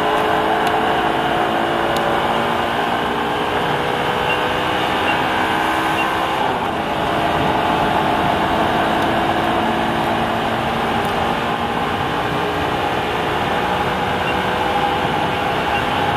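Car engine running hard on a race track, its pitch climbing steadily, with a break about six and a half seconds in where it drops and then climbs again, as at a gear change.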